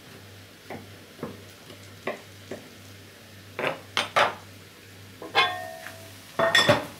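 Kitchen knife chopping diced tomato on a wooden cutting board with a few sharp knocks, then louder clattering as the knife is put down and a glass pot lid with a metal rim is lifted and handled, ringing briefly.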